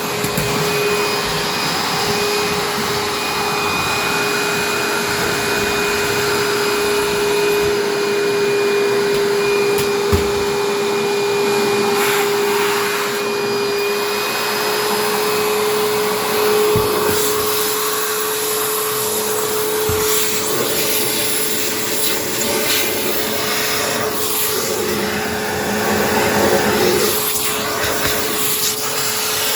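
Vacuum cleaner running steadily, with a constant motor whine and a few brief clicks along the way.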